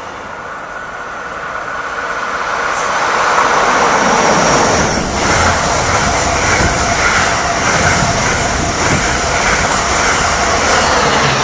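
NJ Transit commuter train of double-deck coaches passing at speed close by. The wheel-and-rail noise builds over the first few seconds into a steady loud rush with a rhythmic clatter from the wheels.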